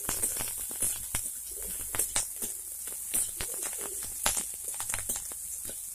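A metal spatula scraping and knocking irregularly against a metal karahi as chopped onion and garlic are stirred, over a steady hiss of them frying in oil.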